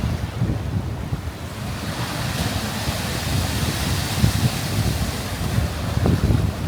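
Ocean waves breaking and washing in, swelling into a loud rushing surge about two seconds in. Wind buffets the microphone throughout.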